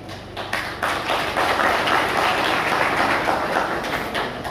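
Audience applauding. The clapping starts about half a second in, swells, and fades away near the end.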